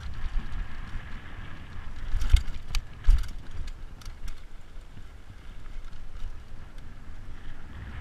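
Mountain bike descending fast over a rough dirt trail: steady rumble of tyres and rattling bike, with wind rushing over the microphone. Two loud knocks about two and a half and three seconds in as the bike hits bumps, followed by a few lighter clicks.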